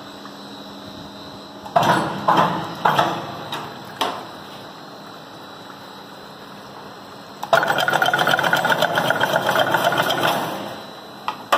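Chain link fencing machine working: a few loud separate clanks, then about three seconds of fast, rattling, machine-rhythm clatter that stops abruptly.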